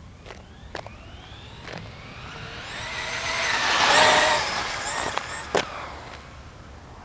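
A vehicle passing close by, swelling to its loudest about four seconds in with a high ringing whine over the noise, then fading. Lighter clanks come before it and a sharp bang follows about a second and a half after the peak.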